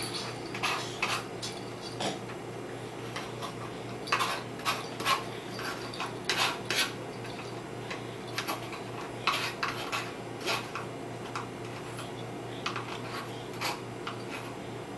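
Light clinks and taps of tableware during feeding, scattered irregularly, over a faint steady hum.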